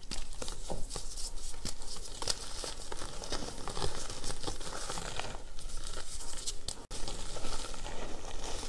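Reformed gym chalk block crunching and crumbling as it is squeezed by hand, then the loose powder sifting through the fingers, a dense run of small crackles.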